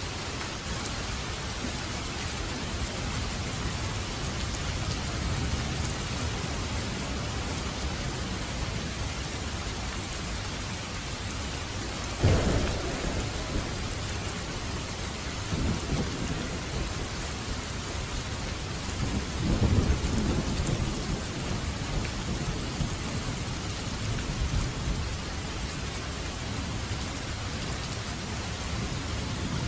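Steady heavy rain hissing, with thunder: a sharp crack about twelve seconds in, then low rolling rumbles a few seconds later and again around twenty seconds.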